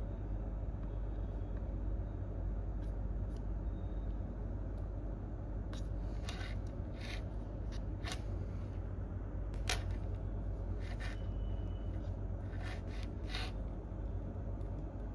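Scattered, irregular clicks of computer keys, sparse at first and more frequent from about six seconds in, over a steady low room hum.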